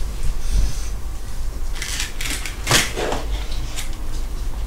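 A few short clicks and rustles of gloved hands handling small things on a table, the sharpest about three seconds in, over a steady low hum.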